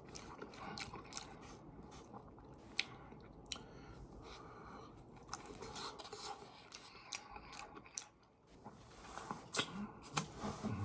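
A person chewing and eating MRE chili mac close to the microphone: irregular small wet mouth clicks, with a brief quiet spell about eight seconds in followed by a few louder bites.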